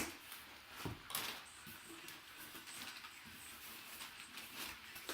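Packing paper rustling and crinkling as a large photo is unwrapped, with a few sharper crackles about a second in.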